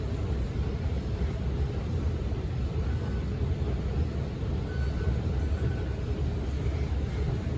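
Singapore MRT train running, a steady low rumble heard from inside the carriage.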